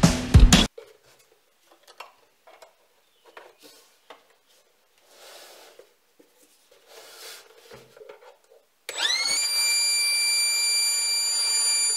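Music cuts off, followed by faint clicks and rubbing from handling. About nine seconds in, the HYCHIKA 18V cordless tyre inflator's compressor motor starts, winds up in pitch within a fraction of a second, and then runs steadily with a high whine.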